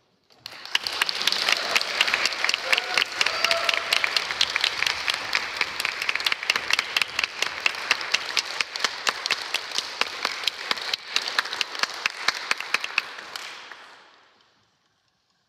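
Audience applause: many hands clapping, starting abruptly about half a second in, holding steady, then dying away shortly before the end.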